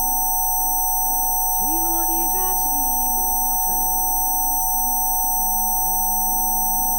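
Rife frequency-therapy tones: several pure electronic tones, one mid-pitched and a few high-pitched, held steady without a break. Under them runs slow, soft ambient music with held notes that change every second or two.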